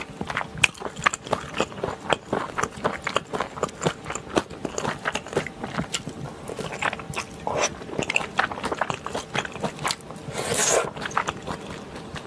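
Close-miked chewing and wet mouth clicks of someone eating spicy stir-fried gopchang with chewy Chinese glass noodles, in an irregular run of smacks. One brief, louder noisy sound comes about ten and a half seconds in.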